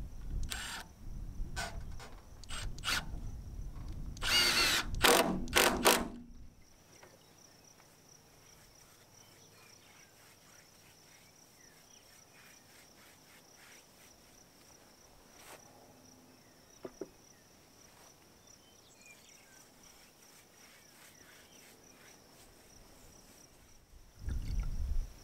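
Cordless drill driving a screw into a rough-sawn wooden board: a few short clicks, then the motor runs hard for about two seconds. After that only a faint, steady high tone and light ticks remain.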